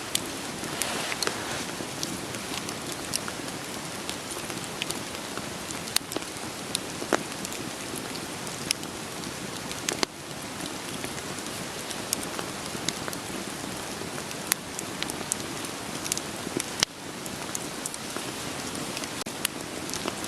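Steady rain patter mixed with a crackling wood fire, with sharp pops and snaps scattered irregularly over the rain.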